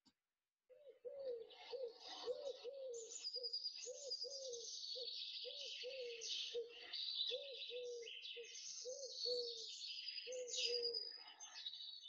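Eurasian collared dove cooing: a steady run of short, soft coos, about two a second. Higher chirps and trills of small songbirds sound behind them.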